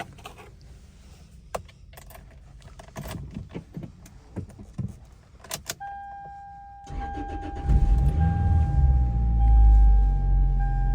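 Car keys jangling and clicking, then a dashboard warning chime starts, a steady tone broken by short gaps about once a second. About seven seconds in the Toyota Celica's engine cranks and catches, settling into a steady low idle under the chime.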